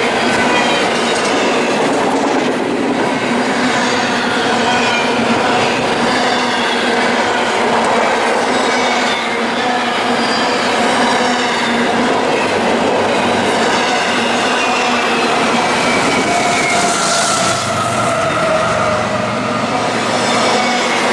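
Westbound CSX double-stack freight train rolling past: a steady, loud rumble of railcar wheels on the rails, with several high, ringing squeals from the wheels that slowly slide in pitch.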